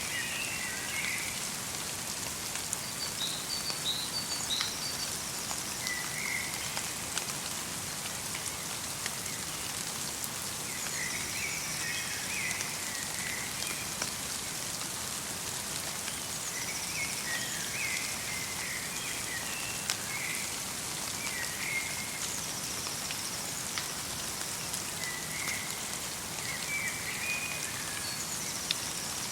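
Light rain mixed with snow falling in a forest: a steady hiss with fine drop ticks. Small birds call in short chirping phrases every five or six seconds.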